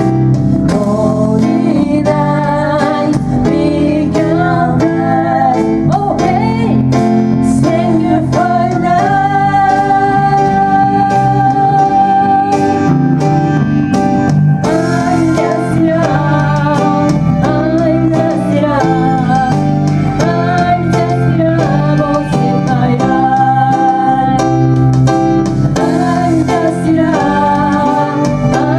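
Live band music: two Roland Juno-G synthesizer keyboards with electric bass, a steady chord and bass bed under a bending melody line that holds one long note about a third of the way through.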